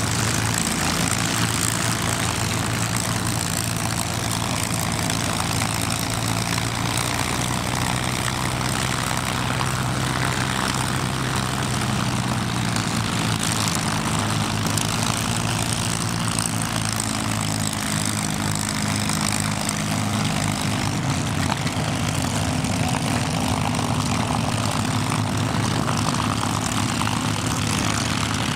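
Packard Merlin V-12 engines of P-51 Mustang fighters running at low power while taxiing: a steady, dense propeller-engine rumble whose pitch shifts slightly about halfway through.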